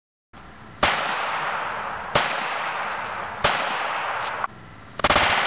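Colt Pocketlite .380 ACP pistol fired downward into open water: three shots about 1.3 seconds apart, each followed by a long rush of noise, then a quick cluster of several bangs near the end.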